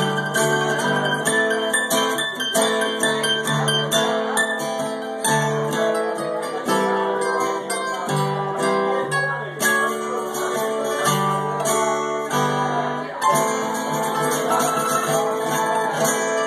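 Mandolin and acoustic guitar playing an instrumental passage together, quick picked notes over steady low guitar notes, tapering off near the end as the song closes.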